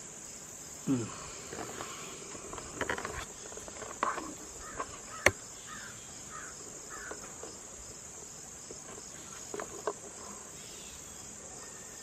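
Steady high-pitched chorus of crickets, with a few short creaks and clicks and one sharp click about five seconds in.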